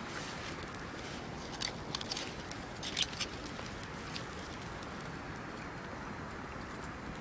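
Wood bonfire burning: a steady hiss with sharp crackles and pops, bunched about two to three seconds in and then sparser.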